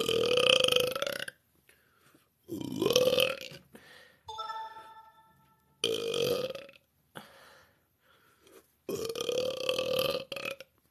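A woman burping: four long belches in a row, each about a second long, with short pauses between them.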